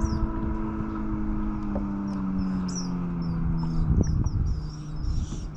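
A motorboat engine droning steadily, its pitch slowly falling, with small birds chirping again and again above it. A light knock about four seconds in.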